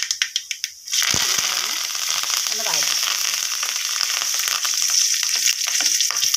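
Curry leaves and green chillies hitting hot coconut oil in an aluminium kadai during tempering. After a few sharp pops, a loud steady sizzle starts suddenly about a second in and carries on while a wooden spatula stirs.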